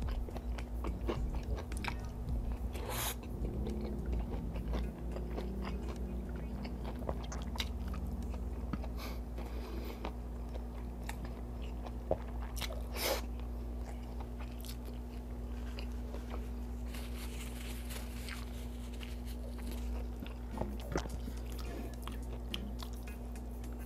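Close-up chewing and biting of crispy fried chicken fillet and rice eaten by hand, with scattered crunches and wet mouth clicks over a steady low hum.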